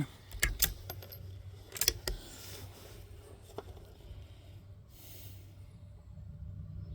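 Small sharp metallic clicks and rattles from handling gear at the shooting bench. There is a cluster about half a second in, a louder cluster about two seconds in, and a single click a little later, over a faint steady low hum.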